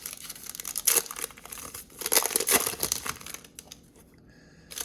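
Foil trading-card pack wrapper crinkling and tearing as it is ripped open, with a sharp click about a second in. The crackling dies down after about three seconds.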